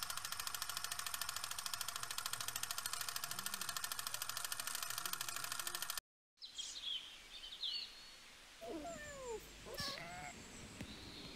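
Steady, rapid clatter and hum of a film projector sound effect. It cuts off suddenly about six seconds in, and after a brief silence birds chirp faintly.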